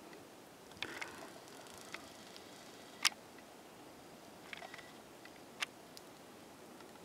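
A handful of short, sharp clicks and ticks at irregular intervals, the loudest about three seconds in, over a faint steady hiss.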